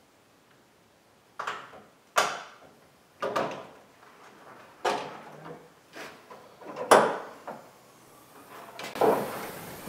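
Plastic grille shell of a Dodge Ram clacking and knocking against the truck's front end as it is pressed and seated onto its locating pins by hand: a string of sharp, irregular knocks about one a second.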